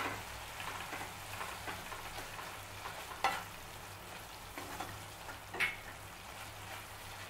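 Tomato sabzi sizzling gently in a non-stick pan as crushed peanuts are stirred in with a wooden spatula, with two sharper spatula strokes against the pan about three and five and a half seconds in.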